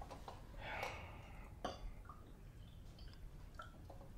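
Quiet room with faint handling sounds from hands at a tea table: a soft rustle about a second in, then a light click, and a few small ticks.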